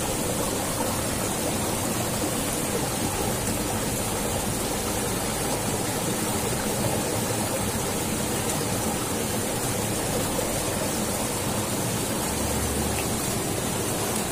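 Steady rush of fast-flowing water pouring out of a stone culvert into a drainage ditch.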